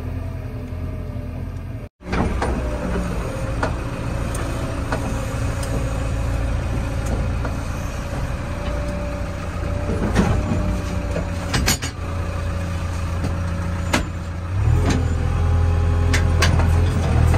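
JCB 3DX backhoe loader's diesel engine running steadily, heard from inside the cab, with occasional sharp clicks and knocks. The sound cuts out for an instant about two seconds in. Near the end the engine grows louder.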